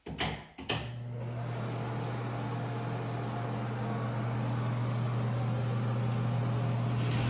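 Two clicks, then a household appliance motor starts and runs with a steady hum and whir.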